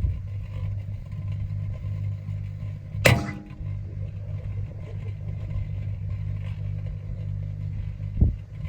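Microwave oven running with a steady low hum, broken about three seconds in by one sharp bang from inside it, and by a duller thump near the end.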